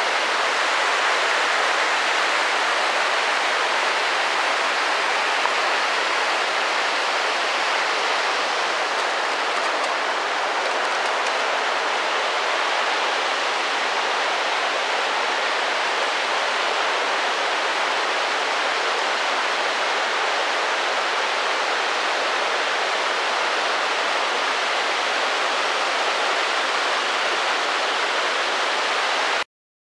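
Steady rushing of a nearby waterfall, an even roar with no rhythm, which cuts out abruptly just before the end.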